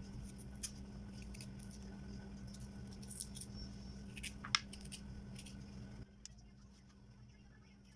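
Faint, scattered small clicks and scrapes of fresh ginger root being peeled by hand, over a steady low hum that cuts off suddenly about six seconds in.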